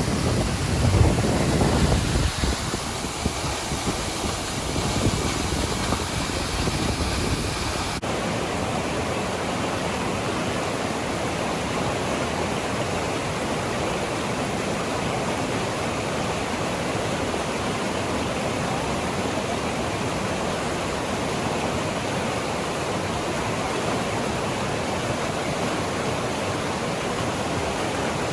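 Crescent Falls waterfall rushing in a steady, even roar. Gusts of wind buffet the microphone in the first few seconds. About eight seconds in, the sound switches abruptly to an unbroken, steady rush.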